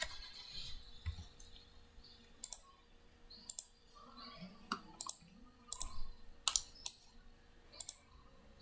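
Computer mouse clicking: a series of short, sharp clicks, several in quick pairs, as objects are picked on screen.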